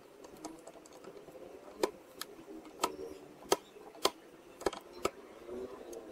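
Handling clicks and taps: about seven sharp, separate clicks at uneven intervals from hands working at the opened speaker cabinet.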